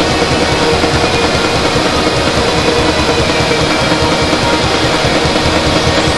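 Loud, dense music that runs on without a break or change, a thick wall of sound with a fast pulse in the low end.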